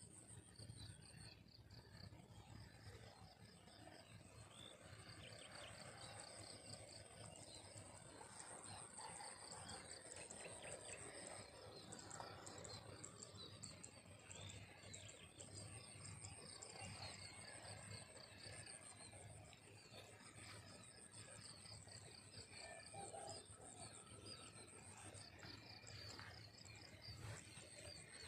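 Faint field ambience: insects trilling steadily at a high pitch, with a second pulsing trill lower down that comes and goes, and scattered bird chirps.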